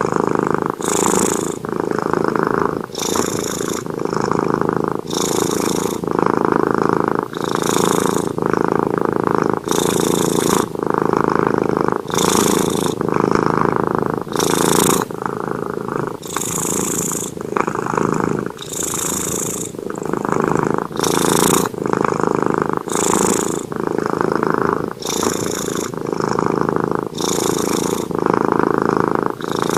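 Cat snoring in its sleep: a steady rumble that swells with each breath, about one breath every two seconds.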